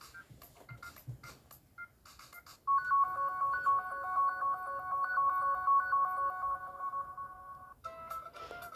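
A built-in ringtone plays from an S-TELL C552 phone's speaker: a loud, fast electronic melody of short beeping notes that starts about three seconds in and cuts off near the end, where a different tone begins. Faint clicks and short tones come before it.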